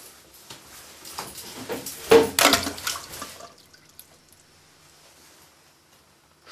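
Water splashing and sloshing in a toilet bowl for about three seconds, building to its loudest past the middle and then stopping.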